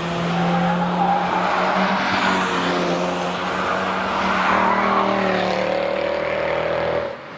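Mercedes C-Class AMG saloon driven hard on a race track, its engine note steady as it comes through the corner, then dropping in pitch a little past halfway as it goes by and away, with tyre and road noise. The sound cuts off sharply near the end.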